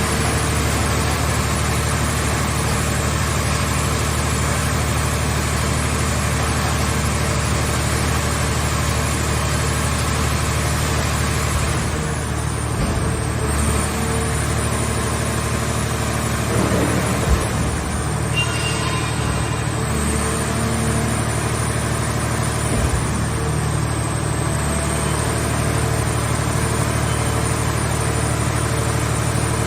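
Engine and hydraulic power unit of a towable hydraulic car-shell scrap baler running steadily, with a few brief knocks about halfway through.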